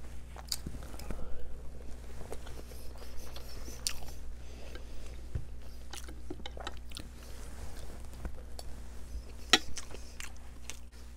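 Chewing and mouth sounds of someone eating Iraqi mumbar (stuffed intestine) and chickpeas: wet smacks and scattered small clicks, with one sharper click about two-thirds of the way through. A faint steady hum lies underneath.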